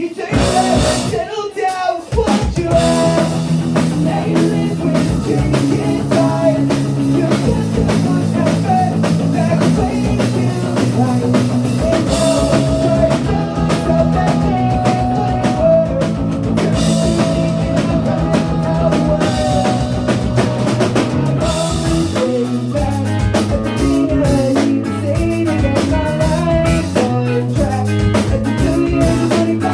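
Ska-punk band playing live, with drums, electric guitar and singing. The full band comes in about two seconds in after a brief break.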